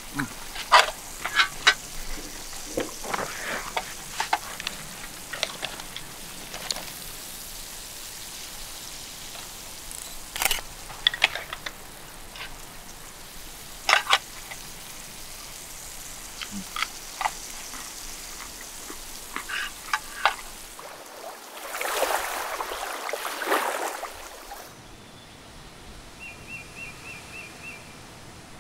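A fork clinking and scraping against a metal tin as food is eaten, in short scattered clicks. A little past the middle there is a brief rush of noise, and near the end a short run of faint, rapid high ticks.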